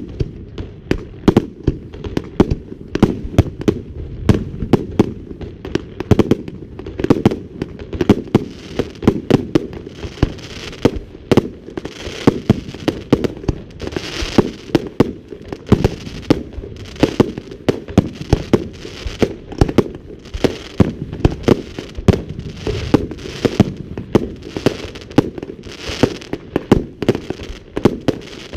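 Fireworks display: a rapid, continuous barrage of shells bursting, several loud bangs a second over a lasting rumble.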